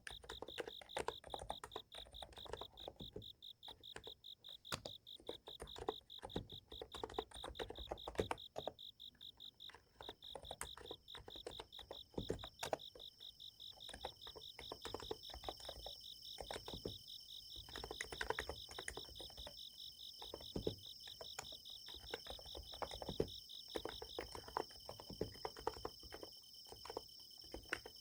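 Irregular soft keystrokes typed on a Niz Plum x108 electrostatic-capacitive keyboard, over insects chirping in a fast steady pulse. A second, higher insect trill joins about halfway through, and the lower trill stops near the end.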